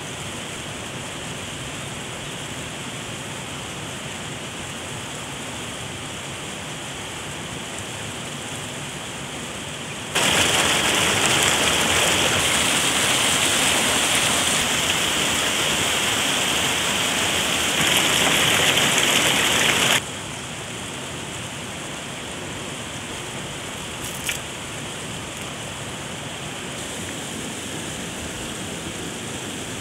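Fast white water rushing over rocks, loud, cutting in suddenly about a third of the way in and cutting off about ten seconds later. Either side of it, a steady quieter hiss of water, with a single brief click about two-thirds of the way in.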